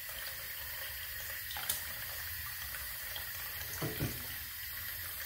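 Bathroom sink tap running steadily while a face is rinsed under it, with a couple of small splashes about four seconds in.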